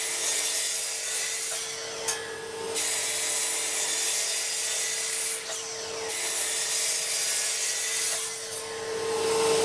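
Oak boards being sanded by a power sander to strip their old oil finish: a rough, steady rubbing hiss over a constant motor hum, easing off briefly a few times.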